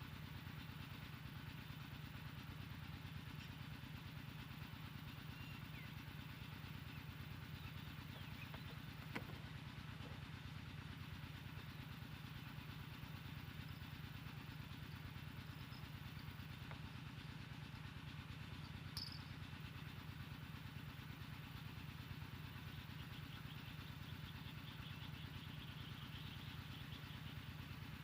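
An engine running steadily at an even, low, fast pulse, with a single sharp click about nine seconds in.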